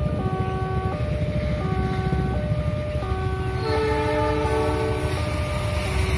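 An Indonesian railway level-crossing warning alarm plays a melodious chime of stepped tones that repeats about every second and a half. About four seconds in, an approaching diesel locomotive's horn sounds over it for about a second and a half, with a steady low rumble underneath.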